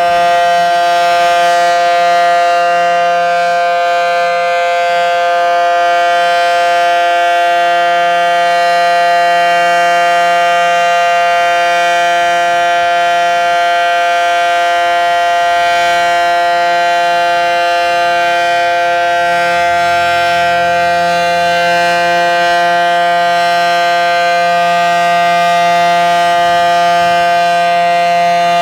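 Federal Signal SD-10 dual-tone outdoor warning siren sounding its full-alert signal: a loud, steady chord held at one pitch without rising or falling. This is a scheduled test of the tornado siren.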